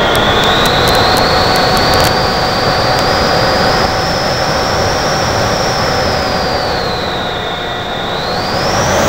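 Onboard sound of a scratch-built foam RC Vulcan model's motor whining in flight, with heavy wind rush over the nose-mounted keychain camera. The whine holds fairly steady, sags in pitch about seven seconds in, then climbs sharply near the end.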